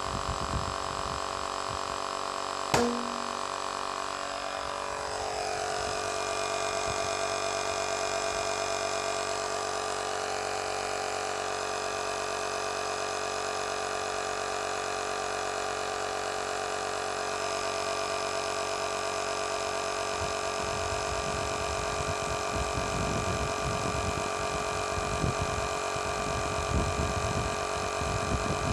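Small electric tyre-inflator compressor from a Toyota puncture repair kit running steadily, pumping air into a tyre to seat its bead. There is a single sharp snap about three seconds in.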